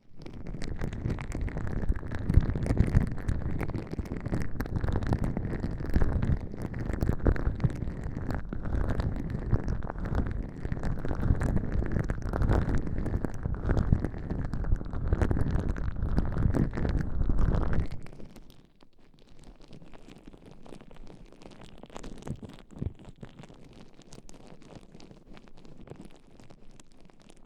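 Gloved hands rubbing gel and baby oil over the ears of an ASMR microphone: a close, squishy, rumbling rubbing that is loud at first and turns much softer and sparser about 18 seconds in.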